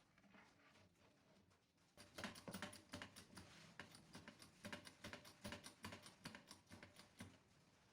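A quick, irregular run of light clicks and taps, starting about two seconds in and stopping shortly before the end.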